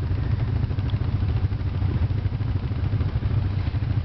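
ATV (quad bike) engine running steadily at low revs, a continuous low rumble.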